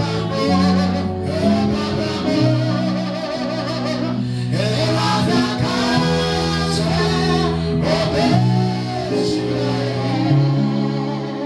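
Music: a voice singing over guitar, with held bass notes that change every second or two.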